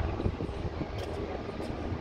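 Steady low outdoor background rumble, with a few faint ticks about a second in.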